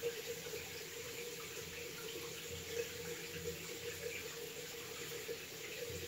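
Faint steady background hiss with a low hum and a few soft clicks.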